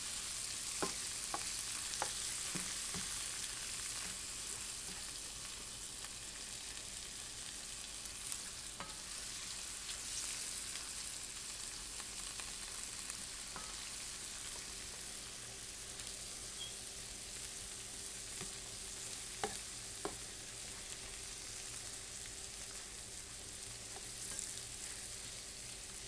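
Shrimp and garlic sizzling in melted butter in a frying pan, a steady hiss, with a few clicks of a plastic spatula stirring against the pan.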